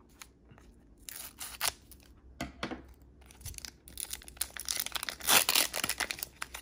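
Foil wrapper of a Pokémon Steam Siege booster pack crinkling in the hands in short bursts, then a longer, louder stretch of tearing and crinkling about four to six seconds in as the pack is ripped open.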